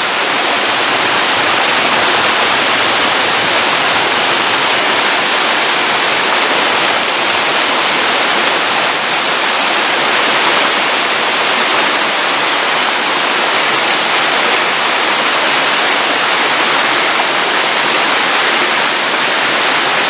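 Waterfall pouring and splashing down a rock face: a steady, loud rush of water.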